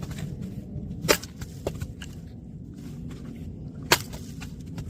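Firewood being split by a machine: two sharp cracks of wood giving way, about a second in and again near the end, with a smaller crack between, over a steady low machine hum.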